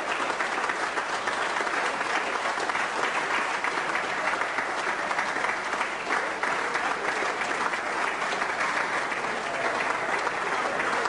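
Sustained, steady applause from members of parliament in the debating chamber.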